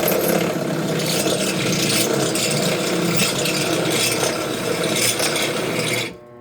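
Power drill boring through a flattened metal dome strut end, a continuous grinding and rasping of the bit cutting. It stops abruptly about six seconds in, leaving only the steady hum of the motor.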